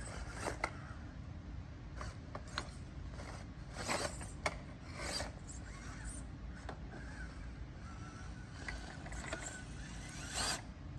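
Traxxas TRX-4M micro RC crawler climbing over rocks: tyres and chassis scraping on stone, with scattered sharp clicks and knocks as it bumps over ledges.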